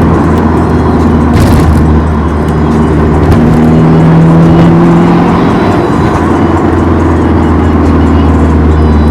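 Car engine running under way at fairly steady revs, a loud low drone that shifts slightly in pitch a few times.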